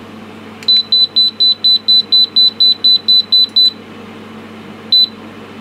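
High electronic beeps from bench test equipment as a calibrator's output is set to 100 V AC: a rapid run of about thirteen beeps, about four a second, then one more single beep about a second later. A steady low hum runs underneath.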